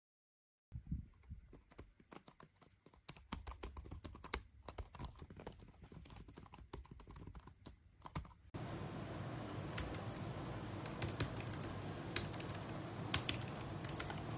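Typing on a compact Bluetooth keyboard with round retro keycaps: a quick run of key clicks. Partway through, the sound cuts to a noisier recording with fewer, more spaced-out clicks.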